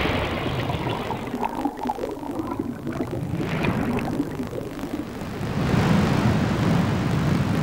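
Low, rushing underwater rumble and bubbling that swells louder about two-thirds of the way through.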